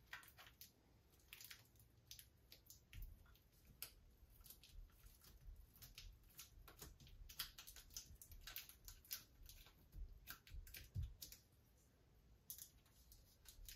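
Faint, irregular clicks and soft taps as a sheet of glass mosaic tiles is pressed by hand into wet thinset on a wall.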